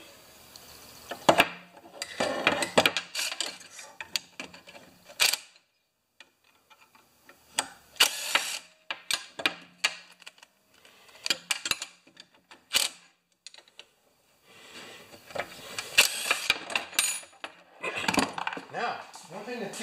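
Metal clinks and clatter of bolts, springs and tools handled and set down on a workbench while a lawn-thatcher blade is taken apart: short, separate knocks and rattles with quiet gaps between them.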